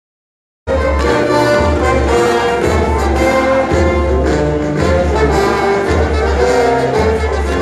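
Band music with brass and a steady bass line, starting suddenly under a second in after silence.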